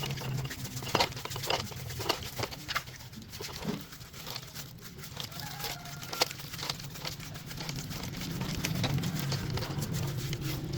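Scattered sharp clicks and knocks over a steady low hum.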